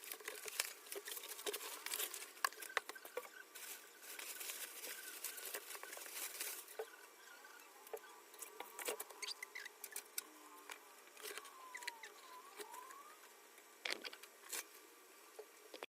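Faint, irregular light clicks and taps over a soft rustle that is busier in the first half, with a few sharper clicks near the end.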